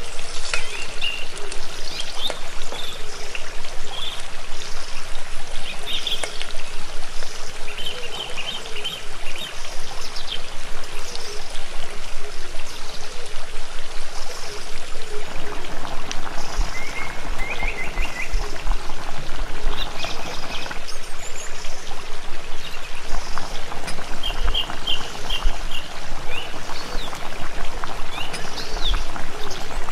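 Water running steadily in a small stream, with small birds chirping in short bursts now and then.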